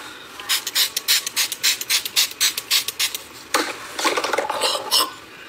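A quick run of short rasping, rubbing strokes, about six a second, then after a brief pause a denser flurry of scraping.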